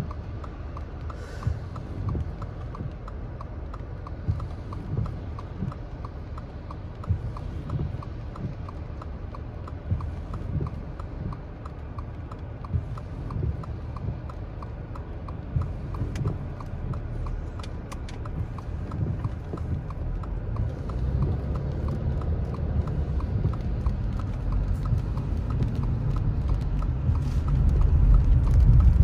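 Car's right-turn signal ticking in an even rhythm inside the cabin, over a low engine and road rumble with scattered thumps. The rumble grows louder over the last several seconds as the car moves off through the turn.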